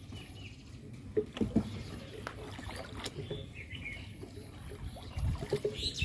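Small wooden boat moving on a calm river: low water noise against the hull, two hollow knocks about a second and a half in, and a few bird chirps. The water noise grows louder near the end.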